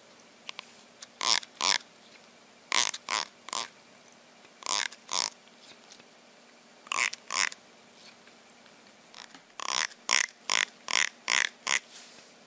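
Blue plastic comb with a fingertip drawn across its teeth, giving short sharp rasps in quick runs of two or three, then a run of six near the end.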